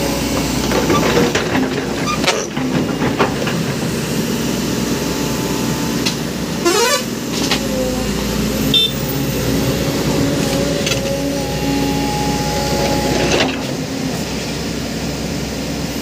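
Heavy diesel engines of a TATA tipper truck and an excavator running hard under load as the excavator bucket pushes the truck up a slope it cannot climb alone, a steady drone with scattered knocks and clanks.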